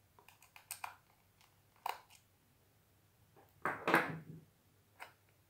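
Faint small clicks and scratches of a small Phillips screwdriver backing a screw out of a plastic multimeter case, then a louder handling noise about four seconds in as the tool is put down and the case is handled.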